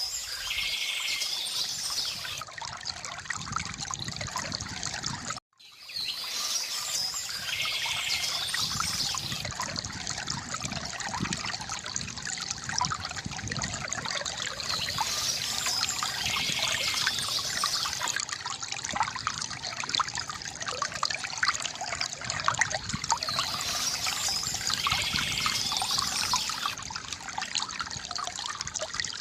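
River water gurgling and trickling steadily, with a songbird singing a short trilled phrase about every eight to nine seconds. The sound cuts out for a split second about five seconds in.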